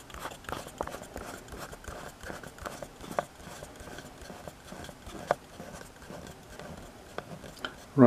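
Small screwdriver turning the hard-drive bay cover screw into the plastic base of a Lenovo ThinkPad T420: faint, irregular clicking and scraping as it is screwed in, with two sharper clicks about three and five seconds in.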